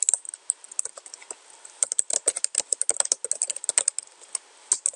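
Typing on a computer keyboard: rapid key clicks in quick runs, with a few short pauses between them.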